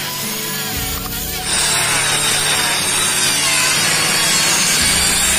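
A handheld electric power tool running and cutting into a hardwood bed leg, the loud cutting noise starting about a second and a half in and holding steady.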